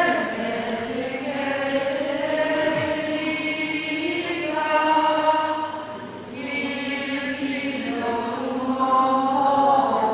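A crowd of procession walkers singing a slow religious chant together, in long held notes with a brief breath between phrases about six seconds in.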